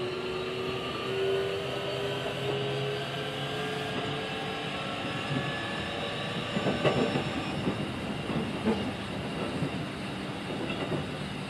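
Keikyu 1500 series electric train heard from inside the car. Its Mitsubishi VVVF inverter and traction motors whine, rising slowly in pitch as the train accelerates, and fade out within the first few seconds. The car then runs on with a steady rumble and a few wheel clacks over rail joints about two-thirds of the way in.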